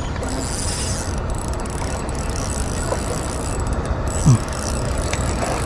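Spinning reel cranked steadily while a hooked fish pulls on a bent rod, its gears running over a steady rush of background noise. A brief low falling sound comes about four seconds in.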